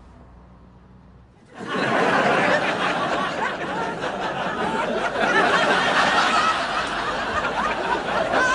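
Studio audience laughter breaking out about one and a half seconds in after a low hum, then going on as a dense, sustained wave of many overlapping laughs.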